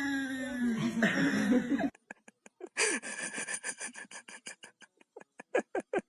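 A dog vocalizing: a drawn-out wavering whine, then a run of short quick yips and huffs, several a second.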